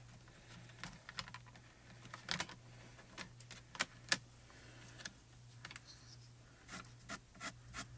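Light scattered taps and rustles of paper cards being moved on a cutting mat, then, from about seven seconds in, quick short pencil strokes, about three a second, drawing grass onto pastel paper.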